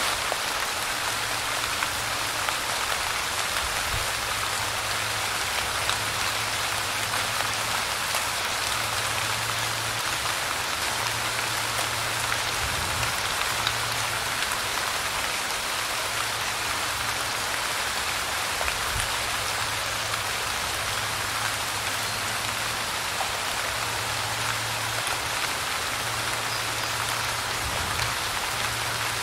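Light rain falling: a steady, even hiss of rain with scattered small drop taps.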